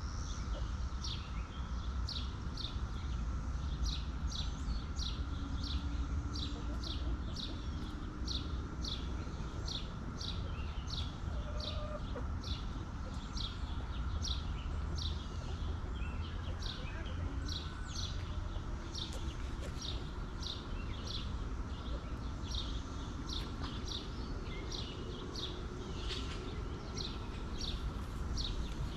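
A bird repeating a short high chirp evenly, nearly two a second, over a steady low rumble.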